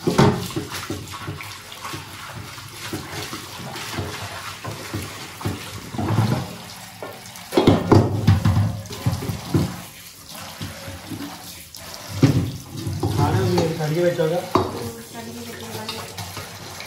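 Kitchen tap running into a steel sink while a metal kadai and its lid are scrubbed and rinsed under it, the metal now and then knocking against the sink.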